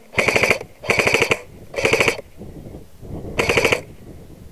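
Airsoft electric gun firing four short full-auto bursts, each about half a second of rapid clicking over the gearbox motor's whine.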